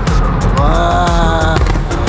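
Fireworks going off: rapid crackles and sharp bangs over a continuous low rumble. About half a second in, a held pitched tone rises briefly and then holds for about a second.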